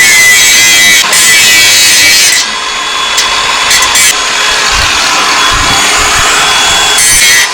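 Power tool cutting or grinding metal, running in loud rough bursts of a couple of seconds each with short pauses between them.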